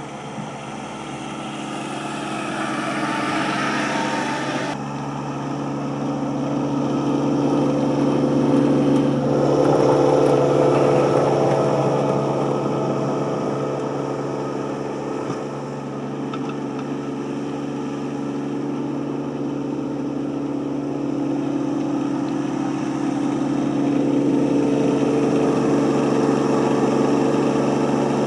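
Yanmar SC2450 compact tractor's diesel engine running steadily as it plows snow, growing louder as the tractor drives closer.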